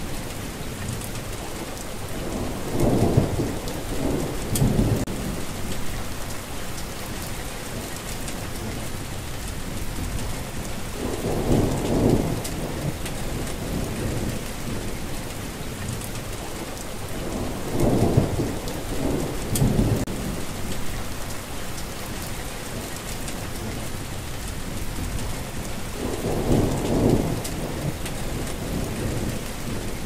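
Steady hiss of falling water with four low rolling rumbles swelling up, each lasting a second or two, roughly every seven to eight seconds.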